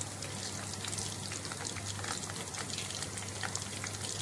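Flour-coated chicken wings and drumsticks deep-frying in a pot of hot oil: a steady sizzle full of small crackles and pops. This is the first fry of a double fry.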